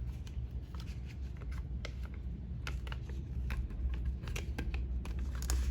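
Scattered light clicks and scrapes of a 2.5-inch SATA SSD and laptop parts being handled and fitted into the laptop's drive bay, over a steady low hum.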